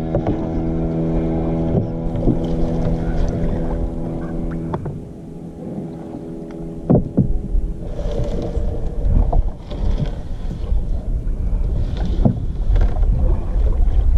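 A fishing net is hauled by hand over the side of a wooden boat on the open sea: scattered knocks and rustles against the hull, with wind on the microphone. A steady hum with several pitches runs for the first five seconds or so and then stops.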